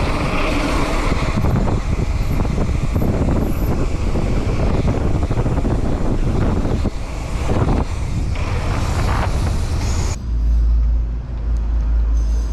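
Mountain bike rolling fast over cobblestone paving: a dense rattle and rumble of tyres and frame on the stones. About ten seconds in it cuts off and gives way to a steady low rumble.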